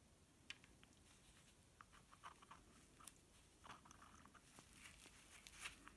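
Faint scattered clicks and rustles of gloved hands fitting greased metal parts onto the shaft of a Panasonic e-bike mid-drive motor.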